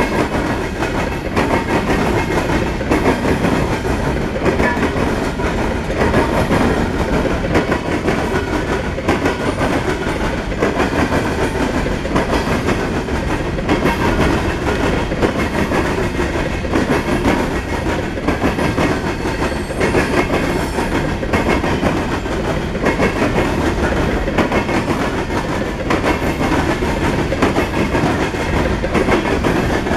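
Steel-wheeled coal hopper cars of a freight train rolling past close by: a steady loud rumble with frequent wheel clicks and clacks.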